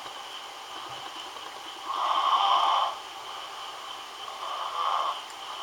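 Snoring: a noisy breath about every two and a half seconds, two of them, each lasting about a second, over a faint steady high tone.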